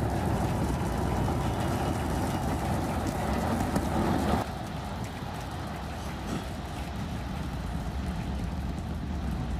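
Engine noise of the Starship Super Heavy booster's Raptor rocket engines during ascent: a dense, deep noise that drops sharply in level about four and a half seconds in and carries on quieter.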